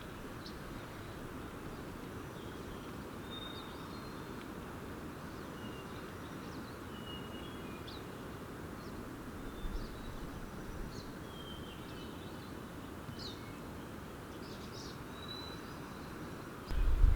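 Small songbirds chirping and whistling in short, scattered calls over a steady background hiss. A sudden low rumble starts just before the end.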